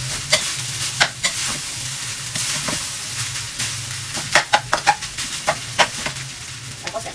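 Cooked rice sizzling as it is stir-fried in a wok, a metal spatula turning and scraping it, with sharp clinks of the spatula against the pan that come in a quick run about four to six seconds in.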